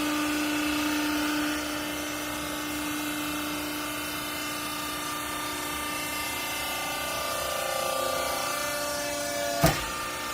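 Workshop machinery running with a steady motor whine of several held tones, easing a little after the first second or two. A single sharp knock comes near the end.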